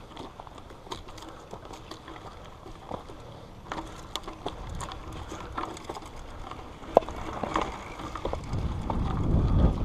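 Mountain bike riding over a rough dirt trail: scattered clicks and rattles from the bike, with a low wind rumble growing louder near the end.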